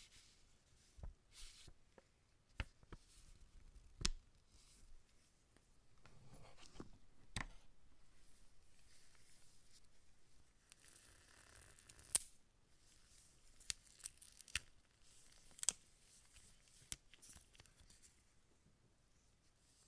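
Faint unboxing handling noise: a smartphone's cardboard packaging being handled and opened, with a dozen or so sharp clicks and taps scattered throughout and a few seconds of rustling in the middle.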